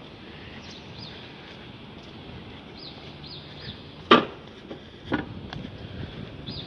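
Small birds chirping in short, repeated falling notes over a steady city hum, with a loud sharp knock about four seconds in and a second, weaker knock a second later.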